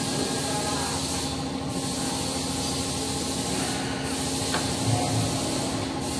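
Han Jie HC-250LR CNC tube bending machine running through a bend cycle: a steady motor hum, with a few short hisses at intervals as the bend head moves.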